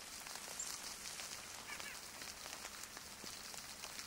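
Faint, steady patter of water drops, the sound of melting snow dripping off the trees.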